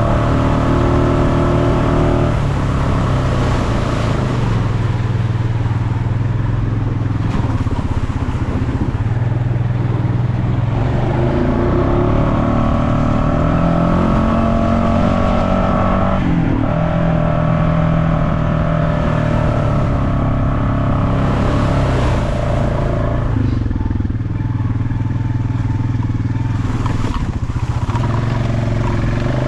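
Off-road vehicle engine running steadily under changing throttle, its pitch stepping up and down several times as it revs and drops back.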